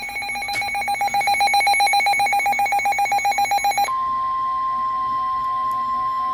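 A rapidly pulsing electronic alert beep, about a dozen pulses a second. About four seconds in it gives way to the steady single-pitched 1050 Hz NOAA Weather Radio warning alarm tone, which marks a warning-level alert ahead of the broadcast message.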